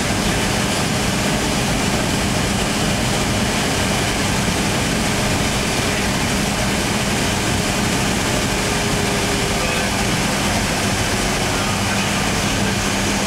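Cabin noise of a Boeing 757-200 taxiing, its jet engines at idle: a steady rush with a low steady hum underneath.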